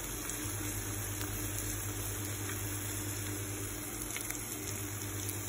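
Tuna-and-egg mixture cooking in a pan under melting cheese, a steady sizzling and bubbling, with a couple of faint clinks of a spoon in the pan about four seconds in.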